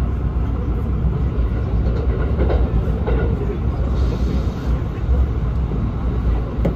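Kintetsu 19200-series limited express car running at speed, heard from inside the passenger cabin: a steady low rumble of wheels on rail.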